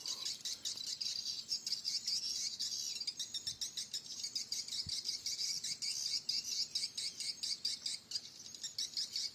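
Edible-nest swiftlet calls: a dense, unbroken stream of rapid high-pitched twittering, the lure call of a swiftlet house's entrance-hole speaker mixed with the swiftlets it draws.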